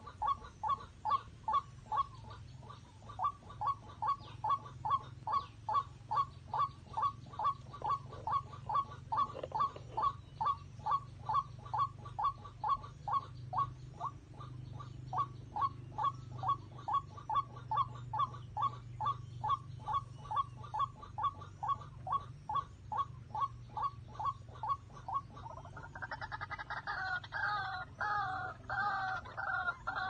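White-breasted waterhen calling: one short note repeated monotonously, about twice a second. About 26 seconds in it changes to a louder, more complex run of calls.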